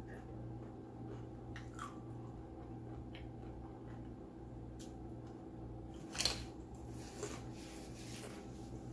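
A person eating close to the microphone: chewing and biting food, with soft wet mouth sounds and scattered light clicks. One sharper, louder crack comes about six seconds in.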